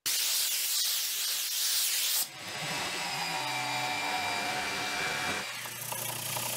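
A loud hiss for about two seconds, then a shop-built wooden 12-inch band saw, driven by a 1 hp induction motor, running and cutting through a plywood panel with a steady whine and hum.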